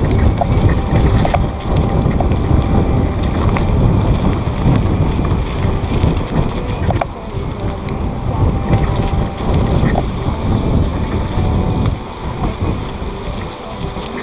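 Wind buffeting the microphone: a loud, gusting rumble that eases off a little near the end.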